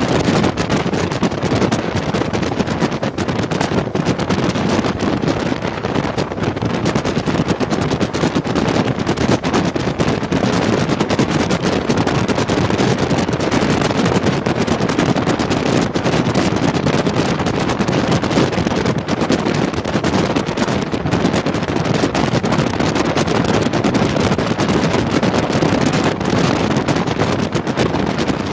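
Wind buffeting the microphone in rapid, steady flutter over the running noise of a regional train at speed, a class 185 electric locomotive hauling n-Wagen coaches, taken from an open window.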